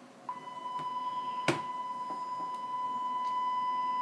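Steady 1 kHz sine test tone from a tablet signal-generator app, starting about a quarter of a second in and then holding at one pitch. It is the audio tone used to modulate a Cobra 19 DX CB transmitter for a 100% modulation check. One sharp click comes about a second and a half in.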